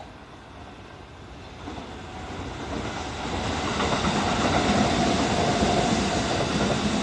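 Kintetsu electric train running past along the platform track, its wheel and motor noise growing louder as it nears and loudest in the second half.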